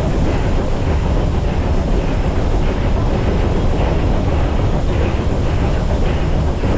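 The Polson 70 steam locomotive running along the track, heard from inside its cab: a loud, steady rumble with a faint repeating beat about twice a second, and wind on the microphone.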